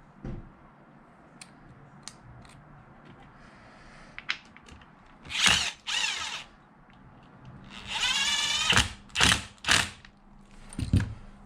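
Power drill running in several short bursts, each winding up and down in pitch, the longest about a second long, with a few brief pulls near the end; countersinking screw holes so the screws sit flush. A thump and a few small clicks come before the drilling starts.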